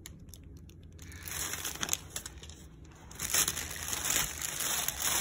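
Clear plastic bag crinkling as the books inside it are handled. The crinkling starts about a second in and grows louder in the last two seconds.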